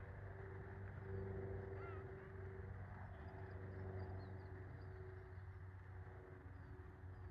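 Faint outdoor ambience by a lake: a steady low hum under scattered small bird chirps, with one short waterbird-like call about two seconds in.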